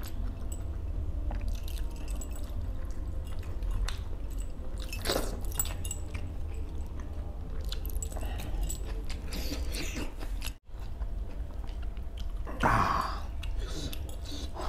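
Close-up chewing and wet mouth sounds of a man eating fish masala with his fingers: smacking, squishing of the soft fish and thick gravy, and scattered small clicks, over a steady low hum. The sound cuts out for an instant about two-thirds of the way through, and there is one louder mouth sound near the end.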